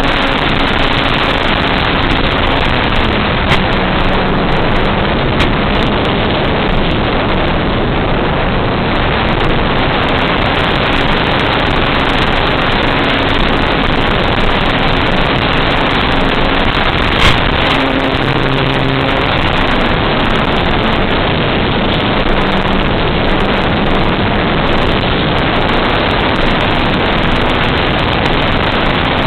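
Loud, steady rushing noise of a small FPV RC plane in flight: its propeller and the wind heard through the onboard microphone, with a faint motor tone that shifts in pitch now and then. A brief sharp crackle comes about halfway through.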